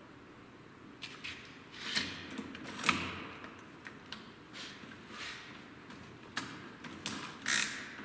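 Scattered metal clinks, knocks and scrapes from handling an adjustable cylinder hone: a wrench tightening the hone to push its stones out, then a cordless drill being fitted onto the hone's shaft. The loudest knocks come about three seconds in and near the end; the drill is not running.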